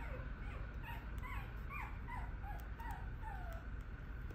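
Pekingese-mix puppy whimpering: about eight short, high whines, each falling in pitch, that stop about three and a half seconds in.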